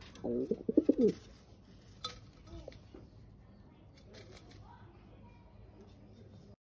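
Domestic pigeon cooing: a short rolling run of low coos in the first second, then a single light click about two seconds in.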